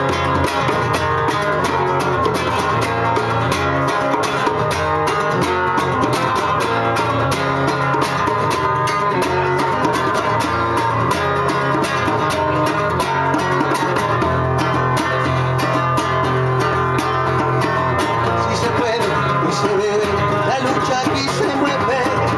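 Live folk song: an acoustic guitar strummed in a steady rhythm, with a hand drum and a harmonica, as an instrumental passage. A man's voice starts singing near the end.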